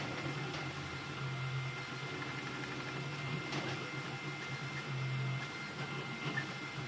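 Creality Ender-3 V3 3D printer running a high-speed print: the stepper motors give a low hum that swells and fades as the print head changes moves, over steady fan noise.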